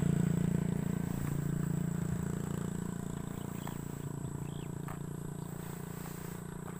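A low engine hum that slowly fades away, with a few faint short chirps in the middle and near the end.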